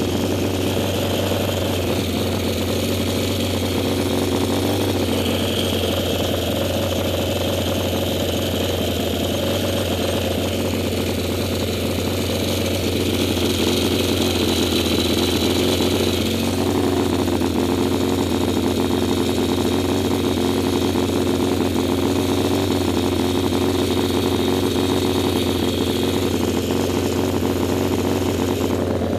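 Yamaha XS650 parallel-twin engine of a vintage racing sidecar outfit idling steadily, heard close up from the rig, its note shifting slightly about halfway through.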